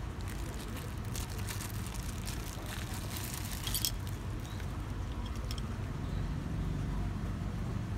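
Clear plastic packaging crinkling in bursts of crackles as metal scope rings are unwrapped and handled, the sharpest crackle a little before the middle, with a few light clicks later. A steady low rumble runs underneath.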